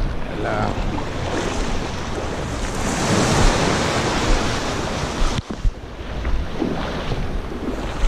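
Small waves washing in over a shallow rocky shore, with wind on the microphone. One wash swells louder about three seconds in and falls away a couple of seconds later.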